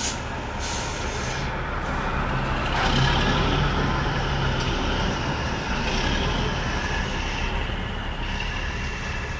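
Semi-truck's diesel engine running steadily at the ramp, with a short hiss about a second in.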